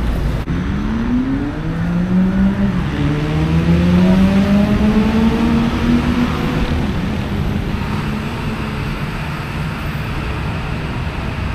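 A motor vehicle's engine accelerating, rising in pitch in two stages over the first six seconds, then levelling off and fading into steady traffic noise.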